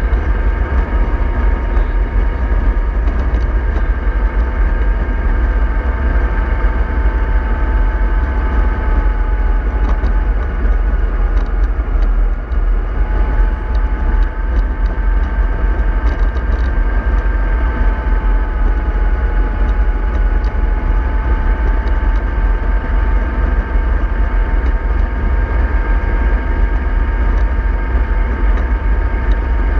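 Remote-control model bus running steadily: a loud low rumble with a constant whine that drifts slightly up and down in pitch.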